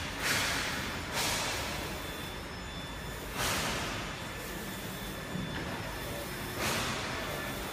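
A 2.5 × 1.3 m UV flatbed printer running, with a steady machine hum. Four sudden rushes of hissing noise rise over it, about a second in, near the start, at three and a half seconds and near the end, and each fades away.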